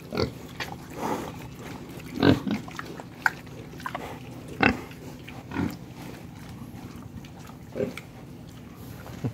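Young pigs grunting in short, separate calls, about one a second, with the loudest grunts about two and four and a half seconds in.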